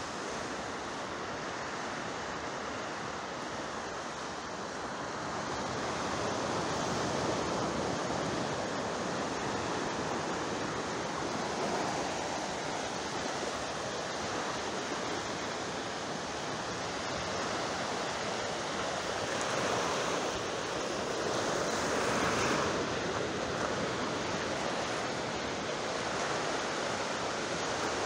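Sea waves washing onto the shore, a continuous rushing that swells and eases in slow surges.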